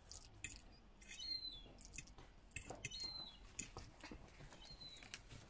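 Faint bird-like chirps, three short high calls about two seconds apart, with scattered light clicks in between.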